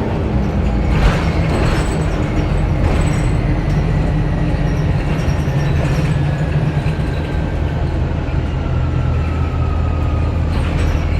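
2009 Orion VII Next Generation hybrid bus (Cummins ISB diesel with BAE Systems HybriDrive) under way: a steady low drone with a thin whine that slowly falls in pitch, and a few short rattles about a second and three seconds in.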